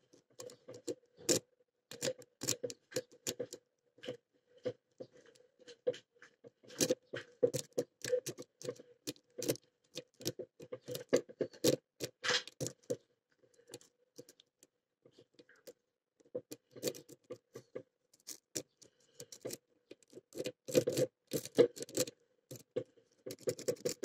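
Homemade rake scraping back and forth over the pin tumblers of a 35 mm Dabel KA 2014 brass padlock held under tension: irregular rapid metallic clicks and scratches, with a pause of about two seconds past the middle.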